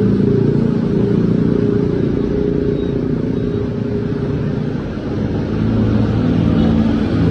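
Road traffic: motor vehicles' engines running in a continuous low rumble. It eases briefly about five seconds in, then builds again as another vehicle draws near.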